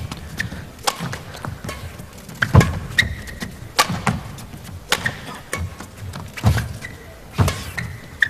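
Badminton rally: racket strikes on the shuttlecock trading back and forth about once a second, with short high squeaks of shoes on the court floor.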